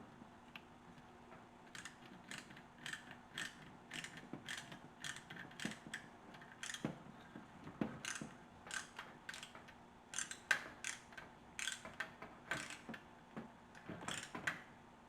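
Small Torx screws being driven by hand into the plastic rack adjuster: short scratchy clicks with each turn of the screwdriver, about two a second, starting about two seconds in.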